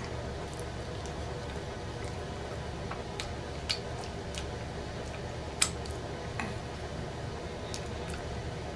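Close-miked mouth sounds of eating fries by hand: soft chewing with a few sharp, wet smacks of lips and fingers, the loudest about three and a half and five and a half seconds in, over a steady low hum.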